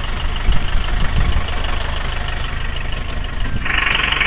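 A vehicle engine running steadily on a rough, potholed dirt road, with a few low thumps early on. About three and a half seconds in, a loud harsh blare starts and lasts about a second.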